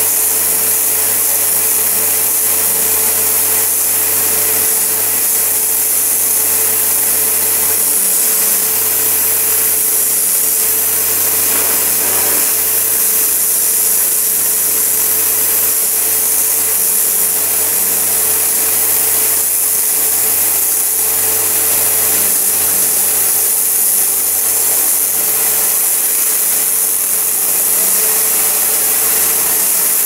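Pressure washer running continuously: a steady motor-and-pump hum under the loud hiss of the water jet blasting moss and grime off brick and concrete.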